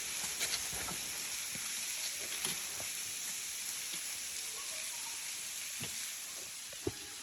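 Small waterfall splashing onto rocks: a steady hiss of falling water, with a few faint taps.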